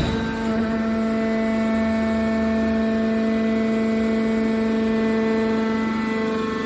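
Hydraulic scrap car baler running with a steady, unchanging whine.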